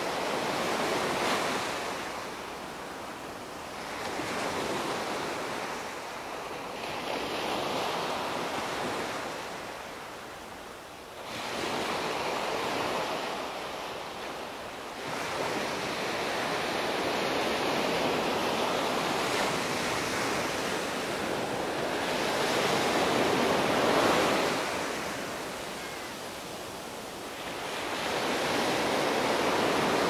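Small waves breaking on a sandy beach and washing up the shore, the surf swelling and fading every few seconds.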